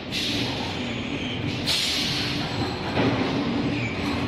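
Servo-motor electric screw press running as its ram comes down toward the mould: a steady mechanical hum with a burst of hissing at the start and another just under two seconds in, and a knock about three seconds in.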